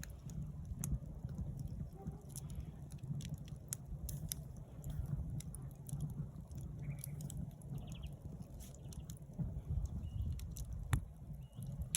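Campfire crackling, with frequent sharp pops and snaps over a low steady rumble, and a few short bird chirps now and then.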